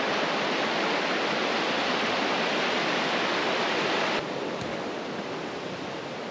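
Steady rushing of a stream or river, a loud, even hiss of moving water that drops abruptly quieter about four seconds in.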